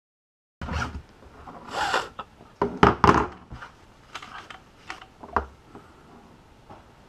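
Dead silence for about half a second, then a plastic fuel sending unit tube being handled and wiped with a rag: irregular clicks, knocks and short rustling scrapes.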